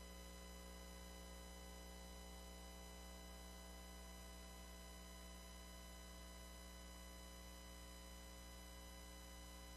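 Near silence: a faint steady hum with no change or events.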